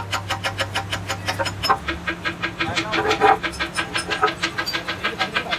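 Rapid, even hammer taps on a cast iron tractor transmission housing, about six a second.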